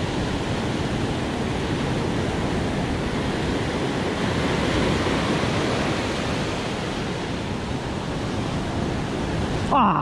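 Ocean surf breaking and washing up a sandy beach in a steady rush, with wind buffeting the microphone. A short, loud pitched sound cuts in just before the end.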